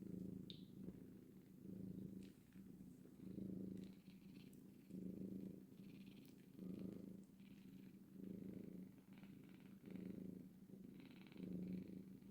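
Domestic cat purring softly and steadily, the purr swelling and fading with each breath about every second and a half.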